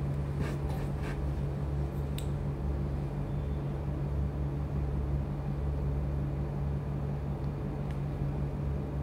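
A steady low hum, with a few faint clicks in the first couple of seconds.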